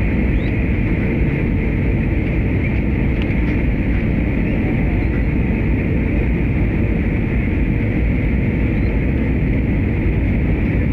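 Steady jet airliner cabin noise heard from a window seat on final approach: the drone of the engines mixed with rushing airflow over the fuselage.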